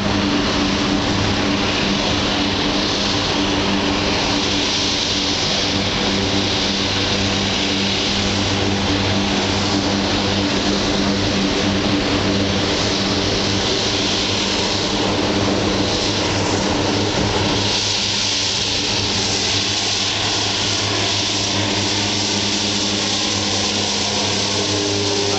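Single-engine DHC-3 Turbo Otter floatplane's turboprop at takeoff power on its run across the water: a steady, even-pitched drone under a constant hiss.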